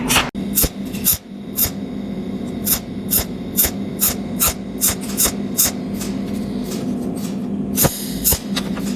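Cold welding machine firing its pulses into the metal, a sharp snap about twice a second over the machine's steady hum.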